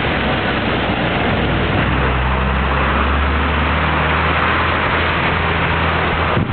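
Rushing whitewater of a swollen creek, a loud steady noise. About two seconds in, the low steady hum of a motor vehicle's engine comes in under it and stops just before the end.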